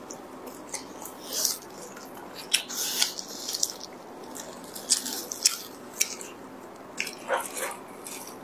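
Close-miked eating sounds: plastic-gloved hands tearing braised pork, then biting into it and chewing, heard as an uneven run of sharp clicks and short wet smacks.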